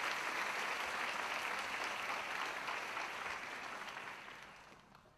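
Audience applauding, steady at first and then dying away near the end.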